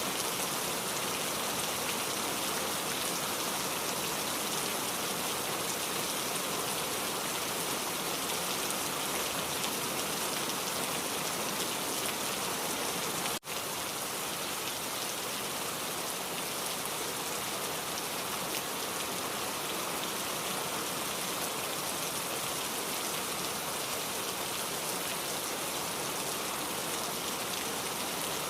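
Heavy rain falling in a steady, dense hiss, with a momentary break about halfway through.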